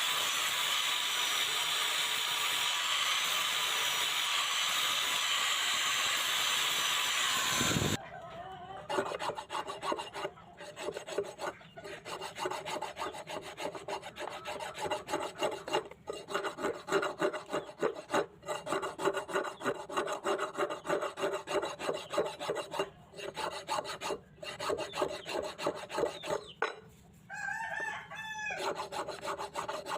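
A steady, loud hiss from a running machine cuts off suddenly about eight seconds in. It is followed by rapid back-and-forth scraping strokes of the knife's metal blade against an abrasive, worked by hand, with a faint ringing in each stroke. A rooster crows briefly near the end.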